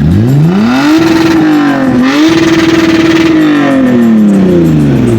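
Car engine revved hard and held high, with a brief dip about two seconds in, then winding back down.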